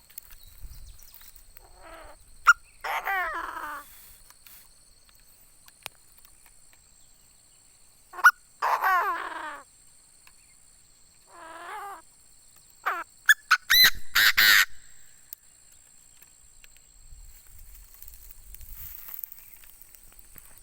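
Chinese francolin (đa đa) calling: four bouts of loud, harsh crowing, each a quick run of falling notes, with the loudest bout near the end.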